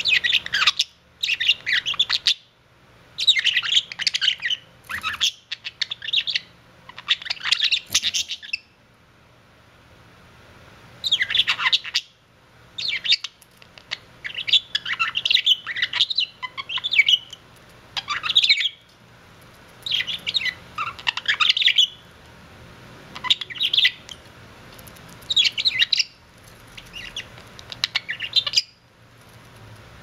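Budgerigars chattering and warbling in quick bouts of a second or two, separated by short pauses, with a longer lull of about two seconds around a third of the way in.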